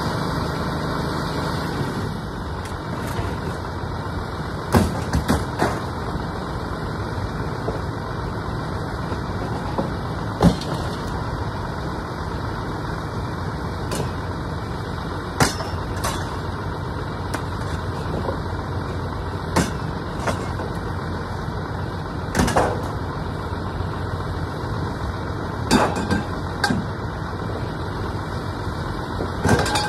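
A vehicle engine idling steadily, with short knocks and clanks every few seconds, several in quick pairs or threes, from scrap metal being handled.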